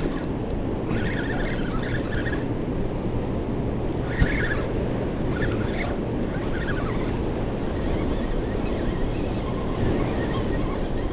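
Steady roar of fast, turbulent water pouring from a dam's open spill gates, with wind buffeting the microphone. A single sharp knock about four seconds in.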